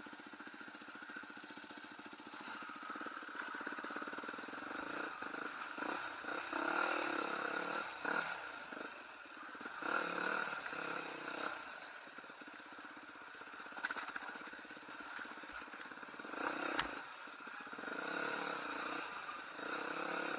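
Enduro trail motorcycle engine running, its level swelling and easing several times as the throttle is opened and closed. There are a couple of sharp knocks in the second half.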